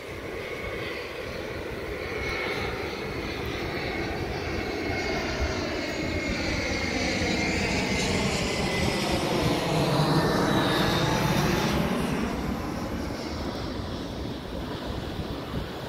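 Fixed-wing aircraft flying over: its engine drone builds steadily, is loudest about ten seconds in, then fades, its pitch shifting as it passes.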